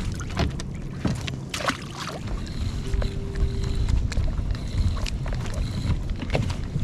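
Wind on the microphone and a constant low rumble of water against a kayak, with scattered knocks, clicks and rattles from handling a crab pot and its catch.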